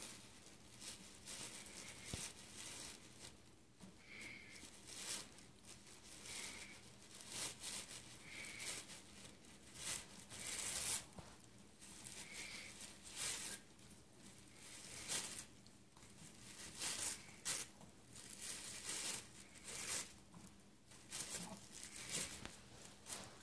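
White tissue paper rustling, crinkling and tearing in irregular bursts as a Tibetan Spaniel tugs it out of a gift box with its mouth.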